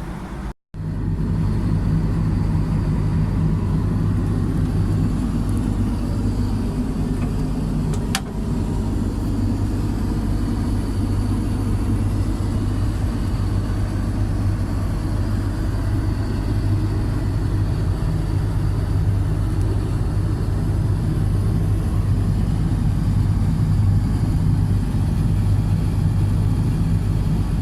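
Steady loud rumble of an Airbus A330-300 heard from inside the cabin: engine and airflow noise, with a brief click about eight seconds in.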